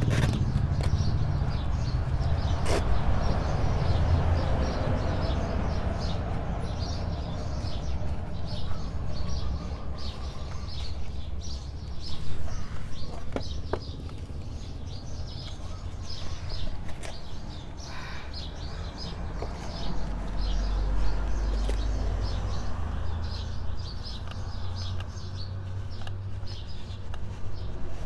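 Small birds chirping over and over, with a steady low rumble beneath and a few sharp clicks.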